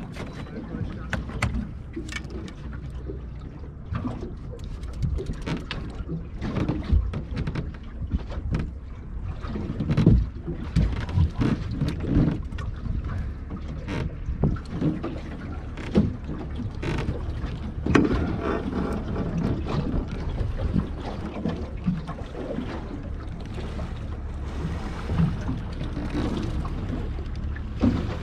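Wind buffeting the microphone over steady water noise on a small open boat, with scattered sharp knocks and clatters against the boat.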